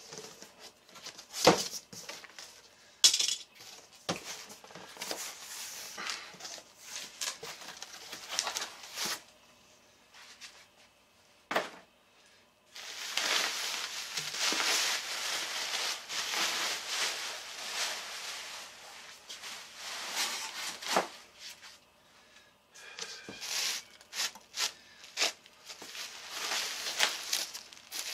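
Cardboard box being opened by hand: scattered sharp crackles and tearing as tape and flaps are pulled back. About halfway through, a long stretch of bubble wrap crinkling and rustling as a wrapped item is handled, then more crackles near the end as it is lifted out of packing peanuts.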